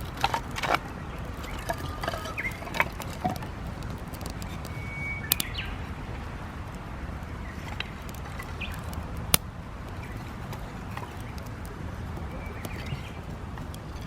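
Small birds chirping here and there over a steady low outdoor rumble, with a few sharp cracks: a cluster in the first second, another about five seconds in, and the loudest about nine seconds in.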